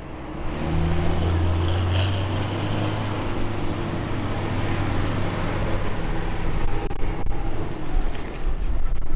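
Diesel tractor engines running as a John Deere tractor pulls out and drives past, followed by a Massey Ferguson. A deep steady engine hum dominates the first several seconds, turning rougher and more uneven toward the end.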